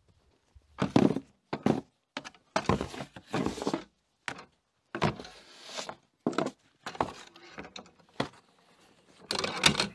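A shovel digging packed snow out of a clogged tractor-mounted snowblower: about a dozen irregular knocks and scrapes as the blade strikes the snow and the blower's metal housing, the loudest near the end.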